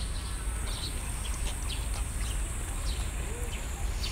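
Outdoor ambience: small birds chirping in short high notes scattered throughout, over a steady low rumble and a steady high-pitched hiss.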